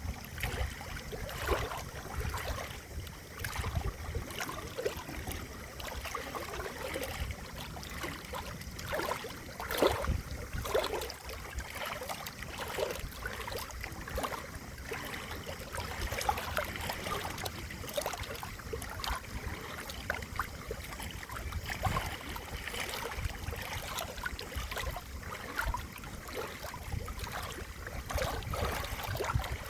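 Running water trickling and gurgling, with a continuous stream of small irregular plops and splashes over a low rumble. A louder splash comes about ten seconds in.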